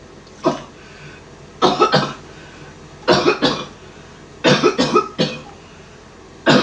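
A person coughing over and over, in short fits of two or three coughs, a fit about every second and a half.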